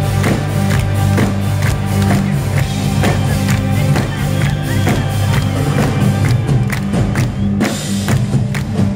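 Live rock band playing: several electric guitars, bass and drums with a steady beat of about two drum hits a second, heard through the PA from within the audience.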